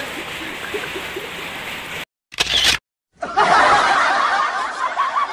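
A camera shutter sound effect, a single short click set between two breaks of dead silence, followed by a stretch of snickering laughter.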